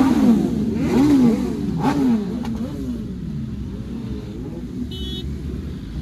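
Several superbike engines being revved with throttle blips, the revs rising and falling again and again for the first two seconds, then settling to a lower rumble of idling engines. A brief high beep sounds about five seconds in.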